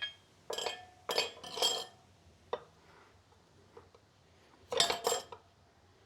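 Metal tire levers clinking against the motorcycle wheel's rim while a tire is levered on by hand: a quick run of ringing clinks in the first two seconds, one sharp clink, then a double clink near the end.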